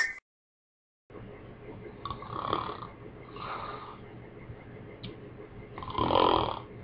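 After about a second of dead silence, a man snores three times in his sleep, the last snore the loudest, over a faint hiss.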